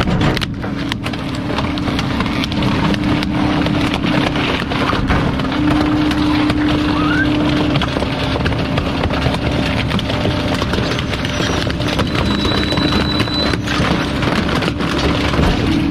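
Rear-loader garbage truck's hydraulic packer blade running through its compaction cycle, crushing household junk and plastic in the hopper. A steady hum that drops out and returns, over a noisy mechanical bed with scattered sharp cracks and knocks.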